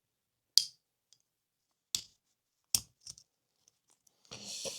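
Small sharp clicks and taps of tools and parts as an OO gauge model locomotive is dismantled: four separate clicks over about three seconds, then a short scraping rustle near the end as a part is worked loose.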